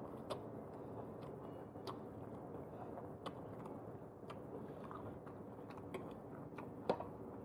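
Close-up chewing and mouth sounds of people eating chow mein and momos, with scattered small wet clicks and one sharper click near the end.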